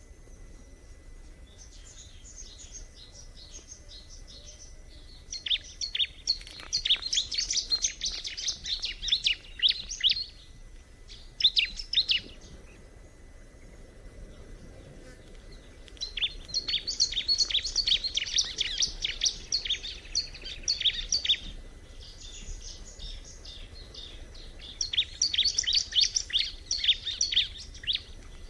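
Bar-winged prinia (ciblek) singing: fast, high chattering chirps in phrases of one to five seconds, with short pauses between them.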